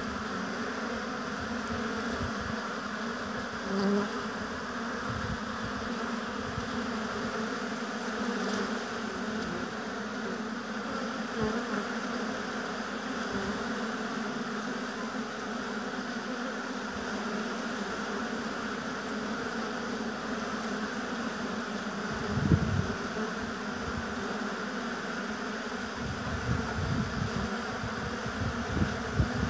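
A mass of honey bees buzzing around their hive in a steady, unbroken drone, with a brief low rumble about three-quarters of the way through.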